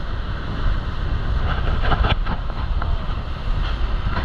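Motorboat running at speed: a steady low rumble of engine and wind buffeting the microphone, over the hiss of the wake churning alongside the hull, with a few sharper rushes of water about two seconds in.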